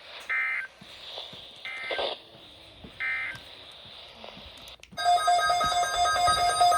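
Emergency Alert System alert: three short buzzy digital data bursts of the SAME header, about a second and a half apart, then about five seconds in a loud electronic alert starts suddenly, several tones pulsing on and off rapidly.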